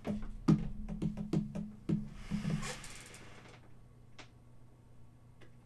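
Shrink-wrapped cardboard trading-card boxes handled on a tabletop: a quick series of taps and knocks over about two seconds, then a few faint ticks.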